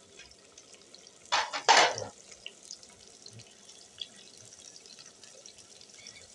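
Chopped onions sizzling faintly in oil in an aluminium pot, with scattered light crackles, and a brief scraping noise about a second and a half in.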